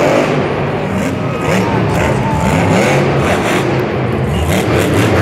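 Grave Digger monster truck's supercharged V8 engine revving hard, its pitch rising and falling with the throttle as the truck wheelies and drives on.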